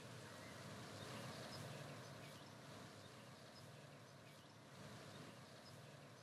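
Near silence: a faint steady hiss with a few faint, brief high chirps.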